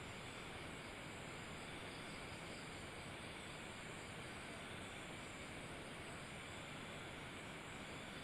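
Steady faint hiss of room tone and microphone noise, unchanging, with no distinct events.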